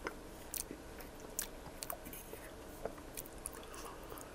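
Close-miked mouth sounds of chewing poutine fries in gravy and sauce: soft wet smacks and scattered sharp clicks at an irregular pace.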